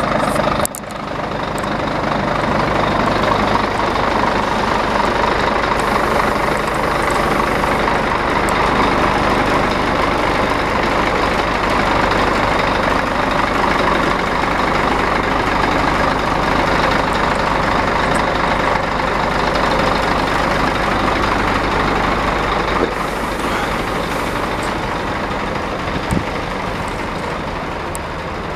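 Scania eight-wheel tipper truck's diesel engine running steadily, its low note changing about 23 seconds in, with a brief sharp click a few seconds later.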